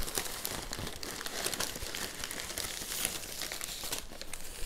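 Packaging crinkling and rustling as the wrapped packages are handled and unpacked from the box, a steady run of fine crackles.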